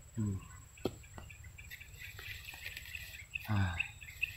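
Outdoor swamp-grassland ambience: birds chirping and a steady high insect drone. Two brief low voice-like grunts, one near the start and one about three and a half seconds in, and a couple of small clicks around the first second.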